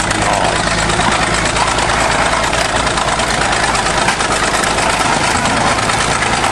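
Heavy machine's engine running steadily at idle, close and loud, with a constant low hum under a dense mechanical clatter.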